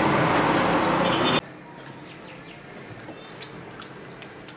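A loud, steady rushing noise cuts off abruptly about a second and a half in. It leaves a quiet room with faint wet clicks and smacks of a child chewing fish eaten by hand.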